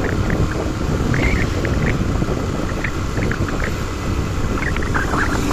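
A moving vehicle's steady engine and road rumble, with wind noise on the microphone.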